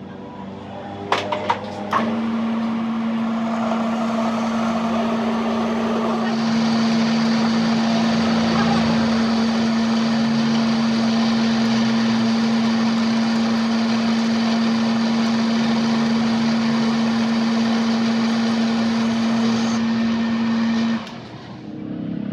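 A few clicks, then a workshop machine running with a steady hum and a whirring noise that gets fuller about six seconds in, cutting off suddenly near the end.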